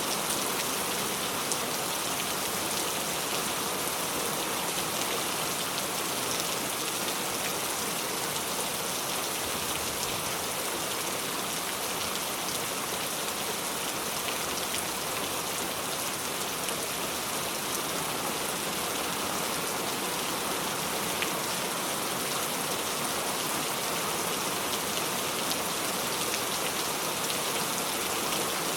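Steady rain falling, an even hiss with scattered drops ticking on a surface.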